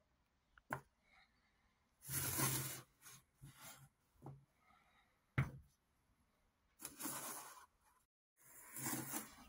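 Empty cardboard tape roll cores being handled: several short scraping rubs as one core slides against another, and two sharp knocks as a core is set down on the wooden board.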